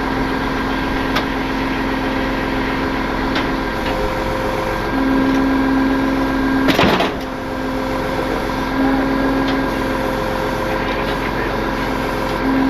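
Tow truck engine idling steadily, with a brief loud burst of noise about seven seconds in.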